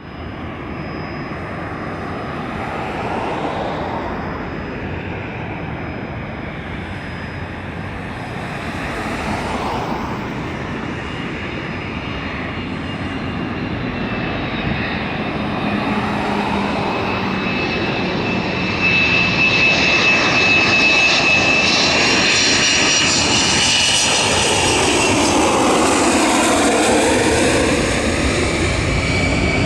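Boeing 727-200 Advanced's three JT8D low-bypass turbofans on approach. The engines grow steadily louder as the jet nears, with a high steady whine, then the pitch sweeps downward as it passes close by near the end.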